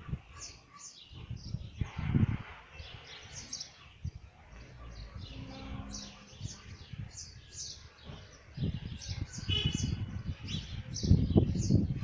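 Small songbirds chirping over and over, short high chirps about two a second. Bouts of low rumble on the microphone come about two seconds in and again through the last few seconds.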